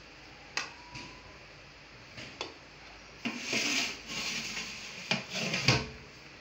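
A steel plate scooping cooked rice pulao out of a large aluminium cooking pot: a few light clinks of metal on metal, then longer scraping and rustling of rice against the metal over the second half, ending with a sharper knock.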